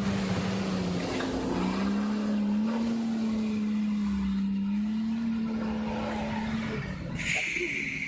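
Nissan Patrol's diesel engine pulling at steady, held revs as the 4x4 drives through a shallow creek, with water splashing around the wheels. A short high hiss comes in near the end.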